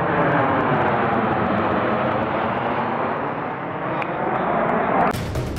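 Loud, steady engine drone with slowly sliding pitch, cut off about five seconds in by the start of music.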